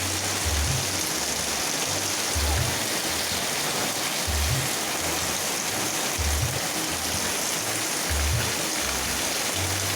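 Heavy rain pouring steadily, with music playing underneath: low bass notes recurring in a regular pattern about every two seconds.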